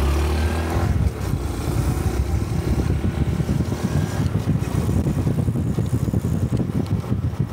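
Honda 125 cc Cub motorcycle's single-cylinder engine pulling away, louder over the first second, then running steadily at road speed with wind rumbling on the microphone.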